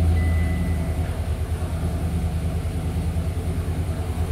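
Chevrolet Silverado pickup engine idling just after being started, a steady low rumble with an even pulse.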